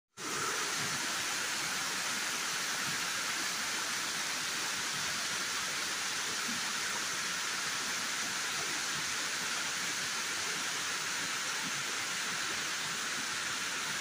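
Waterfall, water pouring over rocks in a continuous, even rush.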